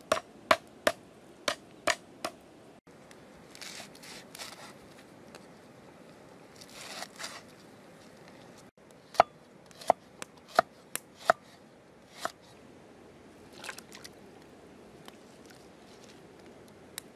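Knife chopping lemongrass stalks on a wooden chopping block: a quick run of about seven sharp knocks, a pause with a few softer hissy sounds, then another run of chops.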